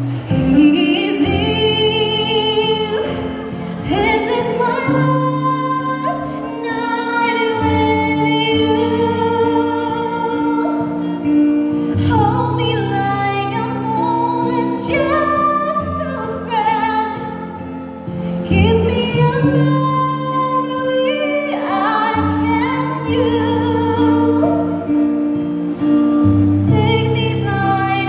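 A woman singing live into a handheld microphone, amplified, with long held notes over a sustained instrumental accompaniment.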